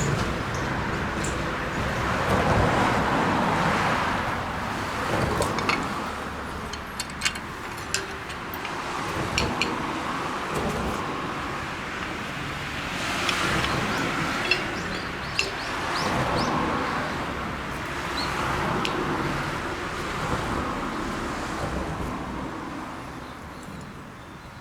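Road traffic: cars passing one after another, their noise swelling and fading every several seconds, with a few sharp clicks between them.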